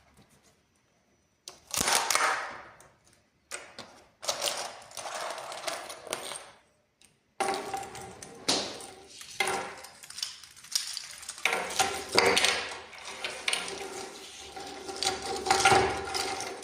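3D printer at work: stepper motors whirring and buzzing through quick moves, with mechanical clicks. It starts about a second and a half in, breaks off briefly twice, and runs on without a break from about seven seconds in.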